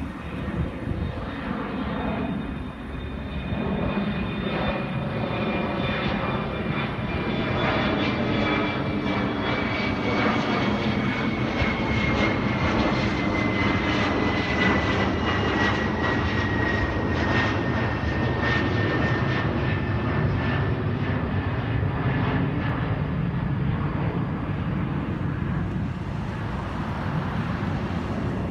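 Jet airliner climbing out just after takeoff: a steady engine rumble with a high whine that slowly falls in pitch, easing off a little near the end.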